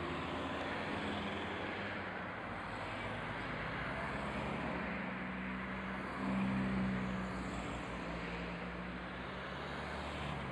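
A line of cars driving past one after another, engines running and tyres rolling on asphalt. One car passing closest, about six seconds in, is louder, with a steady low engine drone.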